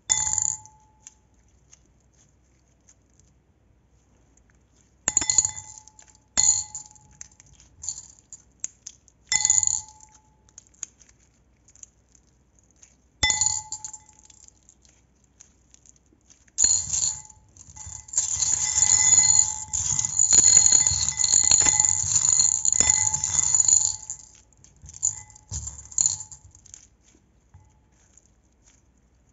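A glass bowl struck by a utensil, giving sharp clinks that ring on briefly at the same pitch each time. There are single clinks or pairs about five, six and a half, nine and a half and thirteen seconds in. From about seventeen seconds a rapid, dense clinking and scraping against the glass runs for several seconds, then tapers off into a few light taps.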